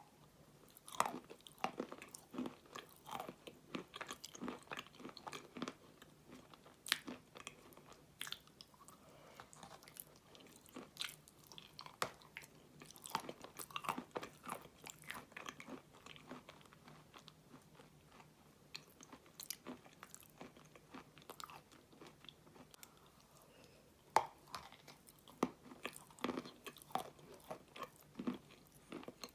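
A person eating ice cream close to the microphone: irregular bites, chewing and mouth smacks, quieter for a few seconds in the middle.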